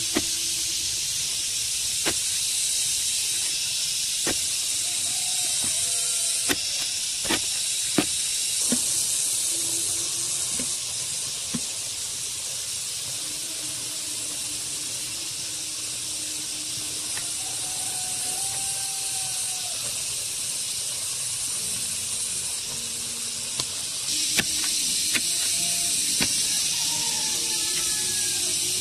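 A hand hoe chopping into garden soil in separate strikes, roughly one every second or two, pausing for a stretch in the middle and starting again near the end, over a steady high hiss.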